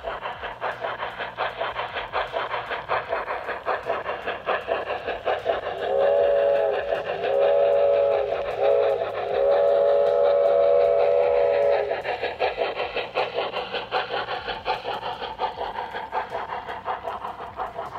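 G scale model train's sound system running with a fast, steady chuffing rhythm. About six seconds in it sounds a whistle three times, two short blasts then a longer one, the whistle being the loudest sound.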